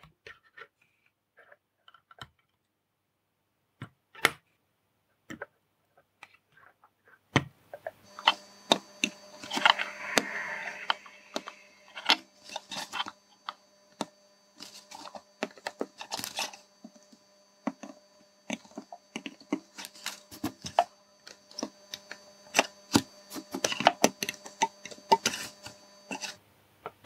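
Scattered small clicks and light taps of hand-soldering work on a small circuit board. About eight seconds in, a faint steady electrical hum with a few thin high tones comes in under the clicks, and it stops just before the end.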